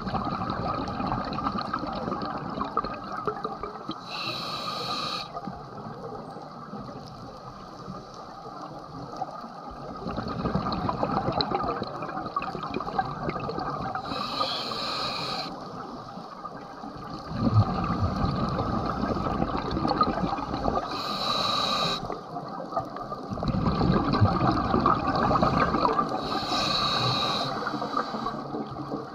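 Underwater recording of a scuba diver breathing through a regulator: four hissing bursts of exhaled bubbles, each about a second long and several seconds apart, over a constant wash of water noise.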